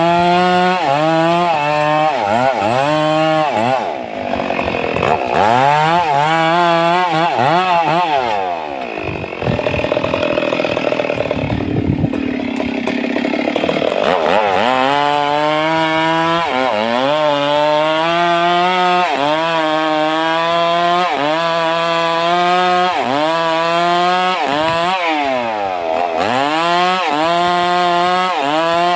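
Stihl MS 382 two-stroke chainsaw cutting sengon wood at full throttle, its pitch dipping and recovering about twice a second as the chain bites and clears. In the middle stretch the engine runs lower and less even, lugging under load in the cut.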